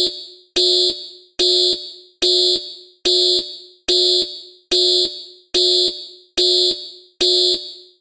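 Electronic alarm beeping: about nine short, sharp beeps at an even pace of a little more than one per second, each mixing a low tone with a shrill high one and dying away quickly. The beeping stops shortly before the end.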